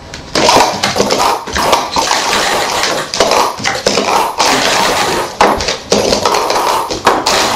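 Plastic sport-stacking cups clacking rapidly as a cycle stack is built up and brought down: a dense, irregular run of hard plastic clatters that starts about a third of a second in and stops near the end.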